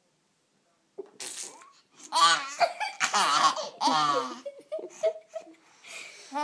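Baby laughing in several bursts of giggles with breathy gasps between them, starting about a second in after a brief silence.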